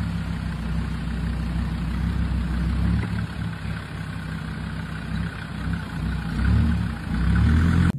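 A motor-vehicle engine running at idle, steady, with a couple of brief rises in level near the end; it cuts off suddenly.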